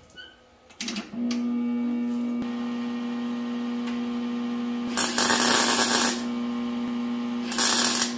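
Welder humming steadily from about a second in, then two short tack welds: bursts of arc crackle, the first about a second long, the second shorter near the end.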